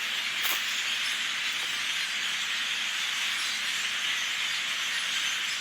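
Steady din of thousands of flocking birds calling at once in the trees, blending into an even, hiss-like wash of chatter.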